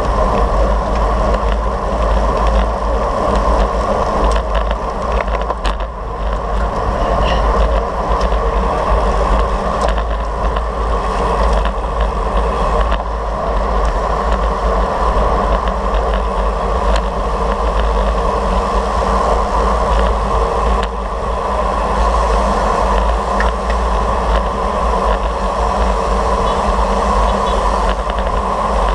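Steady wind buffeting on the microphone of a camera riding on a racing bicycle at speed, with road and tyre noise underneath.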